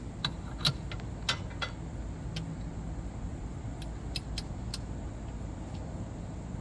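Click-type torque wrench ratcheting on the rear motor mount bolt of the car, a series of sharp, unevenly spaced metal clicks as the bolt is tightened toward 74 ft-lb.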